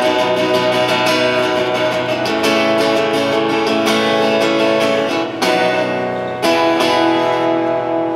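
Amplified acoustic guitar strummed in steady chords, thinning near the end to two single strums whose chord is left to ring and fade, like the close of a song.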